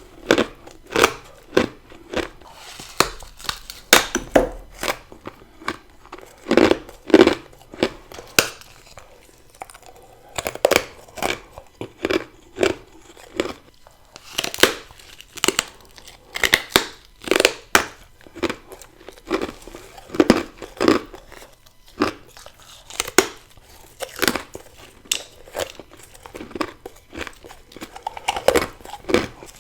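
Close-miked bites into hard, frosty ice, each one a sharp crunch, coming about once or twice a second in an uneven rhythm, with crunching chews between them.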